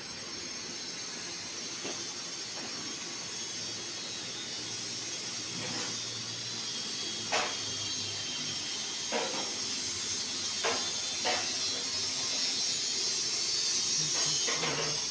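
Steam hissing steadily from a steam boiler set-up; it comes on at the start and grows gradually louder. About seven short, sharp knocks are scattered through the hiss.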